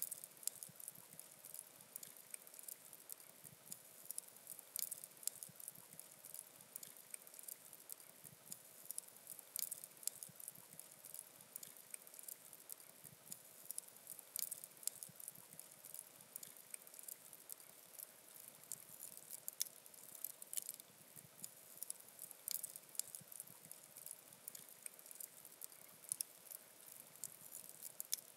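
Wood campfire crackling faintly, with a steady scatter of small irregular pops and snaps.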